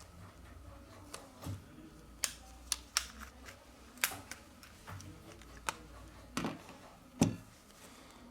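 Scattered sharp plastic clicks and light taps, about ten of them, the loudest near the end: the middle frame of a Samsung A70 phone being pried loose with an opening tool.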